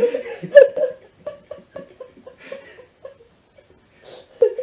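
A woman laughing: a loud burst at first, trailing off into short breathy chuckles, then another breathy laugh near the end.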